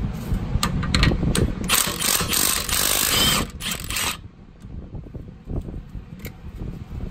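A few sharp metallic clicks, then a power tool runs with a loud rapid rattle for about two and a half seconds and stops abruptly, leaving a low rumble and scattered clicks.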